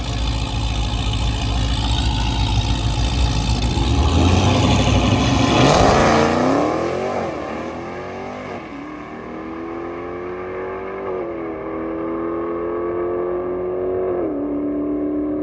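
Drag-racing car at full throttle, loud as it launches and passes close about six seconds in, its pitch sweeping down as it goes by. It then pulls away down the strip with the engine note climbing, dropping back sharply at three upshifts.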